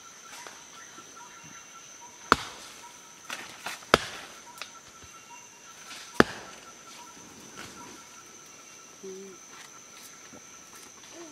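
Three sharp cracks with a few lighter clicks between them in the first half, as a coiled liana is bent and worked by hand. A steady, high chorus of rainforest insects runs under them.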